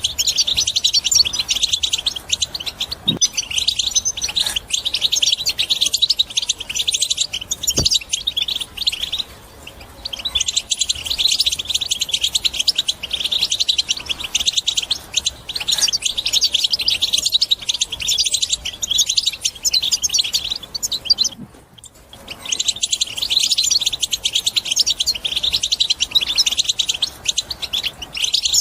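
European goldfinch singing a fast, continuous twittering song, broken by two brief pauses about ten and twenty-two seconds in.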